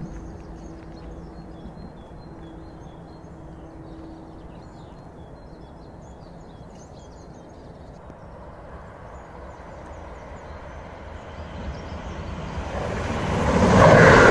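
Electric passenger train approaching and passing, its rumble building from about nine seconds in to a loud rush of wheels on rails near the end. Small birds chirp before it arrives.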